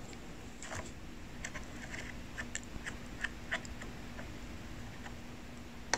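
Faint, irregular clicks and taps of kitchen work: a spatula smoothing cake batter in a metal tin, then buttons being pressed on an oven's control panel, over a low steady hum.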